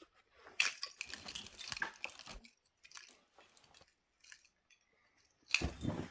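German Shorthaired Pointers moving about on their blanket-covered beds: short bursts of blanket rustling and a light jingle of collar tags. About five and a half seconds in, a louder scuffle as two of the dogs meet.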